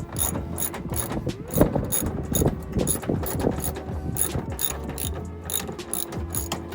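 Socket ratchet wrench clicking in a steady run, about three clicks a second, as it undoes the 19 mm bolt of a front seat belt anchor.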